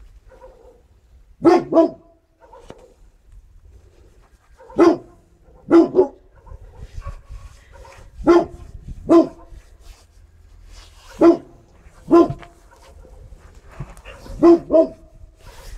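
A dog barking at close range: about ten short, loud barks, many in quick pairs, with pauses of a second or more between them.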